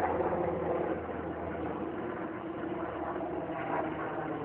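Helicopter flying overhead: a steady engine and rotor drone.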